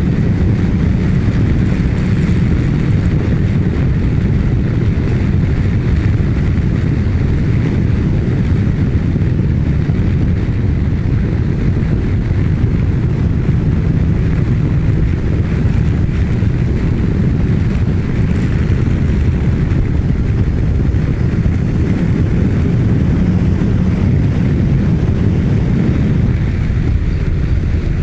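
Steady wind rush on a motorcycle rider's microphone at a constant expressway speed of about 120 km/h, over a Kawasaki Ninja 1000SX's inline-four engine running under steady load. It is a loud, even, low noise without breaks.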